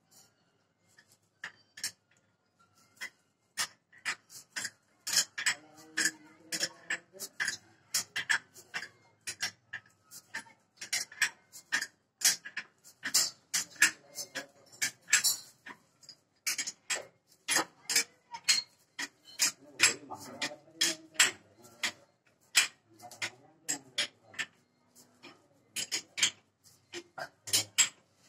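Hammer tapping a chisel against a tiled wall in quick, irregular metallic strikes, several a second, chipping at the tile.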